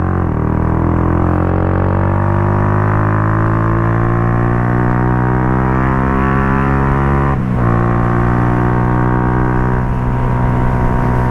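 Benelli RFS150i single-cylinder motorcycle engine with an aftermarket racing-line exhaust, under steady acceleration with its pitch slowly rising. About seven and a half seconds in there is a quick gear change, after which it runs on at a steady pitch.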